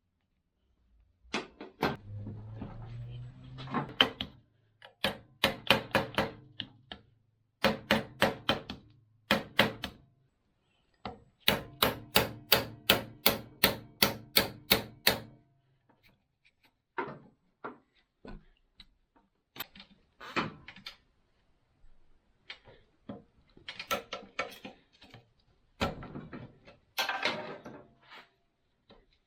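Hand tools working on motorcycle parts: runs of sharp, evenly spaced metallic clicks, about three a second, then scattered knocks and clatter.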